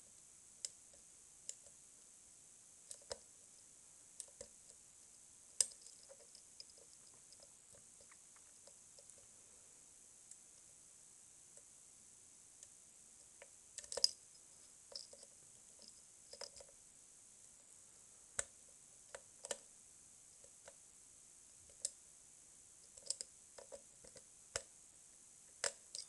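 Faint, irregular metallic clicks of a pick and tension wrench working the telescoping pin stacks of a Mul-T-Lock cylinder, over a steady hiss, with a short run of louder clicks about halfway.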